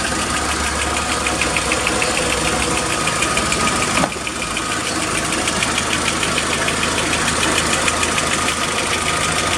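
Volkswagen Jetta's four-cylinder petrol engine idling evenly, with a fast, regular ticking over its hum. The P0300 multiple-cylinder misfire has been repaired and the engine now runs stable. A single click about four seconds in.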